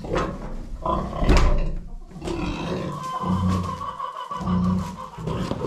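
Pig grunting in a stable pen, a few short low grunts in the second half, with a sharp knock about a second and a half in.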